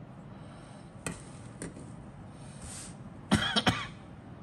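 Grey plastic model kit sprue being handled and laid down on a cutting mat: a light plastic click about a second in, another soft one soon after, then a quick cluster of three louder clacks as the sprue is set down near the end.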